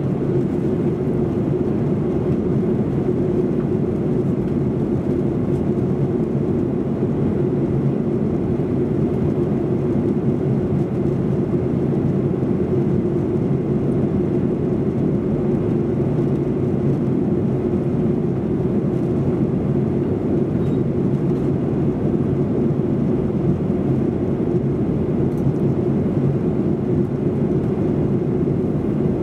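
Steady cabin noise inside a Boeing 737-800 on approach, heard from a rear seat: the hum of its CFM56-7B turbofan engines and the rush of air past the fuselage, with a constant low drone.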